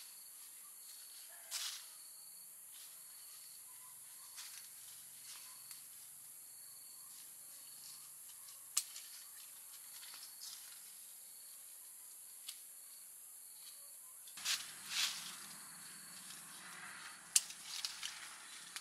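Faint orchard ambience: a steady high insect drone with short chirps repeating now and then, and a few sharp clicks. From about three-quarters of the way in, leaves and plastic fruit bags rustle as branches are handled and guavas are picked.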